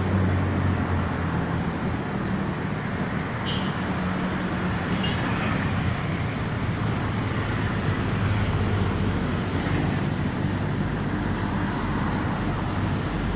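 Air compressor running steadily with a low hum under a continuous hiss of air, as when a paint spray gun is in use.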